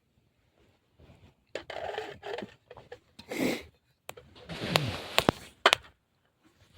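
A man's breathy exhales after a drink, a satisfied "puhaa" sigh falling in pitch, heard twice, with a few sharp clicks near the end.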